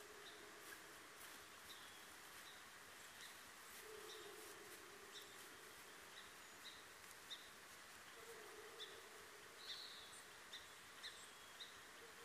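Quiet outdoor ambience: a small bird repeating a short high chirp about twice a second over a steady hiss. A faint low hum swells and fades three times.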